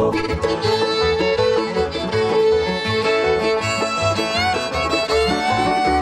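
Bluegrass band playing an instrumental break, the fiddle carrying the lead with long held notes that slide between pitches, over strummed acoustic guitar, mandolin and upright bass keeping a steady beat.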